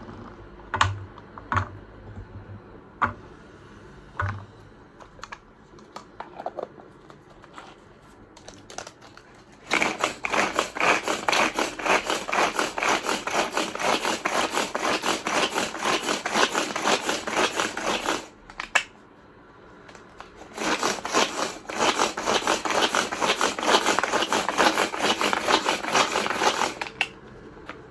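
Manual pull-cord mini chopper working on onion, pulled over and over so its blades spin: a dense run of rapid clicking lasts about eight seconds, stops for about two, then runs again for about six. Before that come a few scattered knocks and clicks as it is handled.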